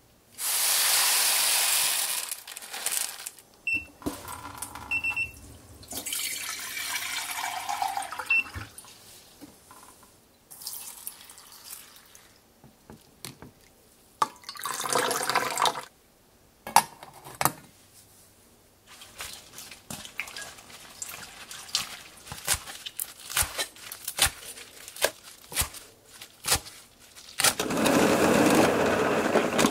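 Kitchen prep sounds: jasmine rice being poured and rinsed under running water in a small mesh strainer, then a string of light clicks and rustles. Near the end comes a push-down salad spinner spinning, a loud steady rush lasting about two seconds.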